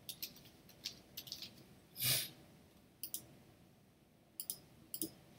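Faint computer keyboard typing and mouse clicks: a scatter of soft key clicks in the first second and a half, a brief soft whoosh about two seconds in, then a few clicks in quick pairs.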